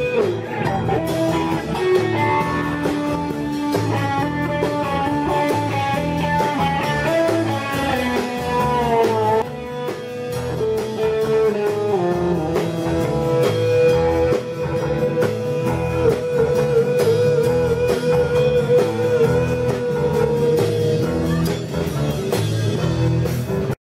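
Live blues-rock band with an electric guitar playing a lead solo, bending notes and holding one long note with heavy vibrato about two-thirds of the way through. The music cuts off suddenly at the end.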